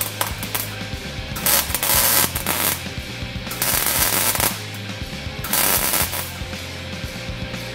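Electric arc welding on the galvanized steel transmission crossmember: the arc crackles in three short bursts of about a second each, with a steady low hum in the pauses between them.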